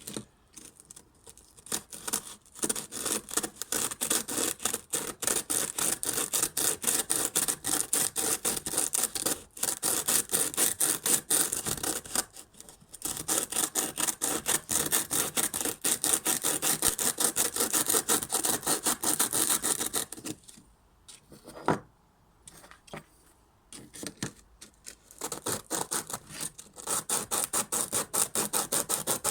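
Bicycle disc-brake pads rubbed back and forth on sandpaper in rapid scraping strokes, lightly sanding the pad surface to cure brake squeal. The strokes break briefly about twelve seconds in and stop for several seconds past the twenty-second mark, apart from a single click, before starting again.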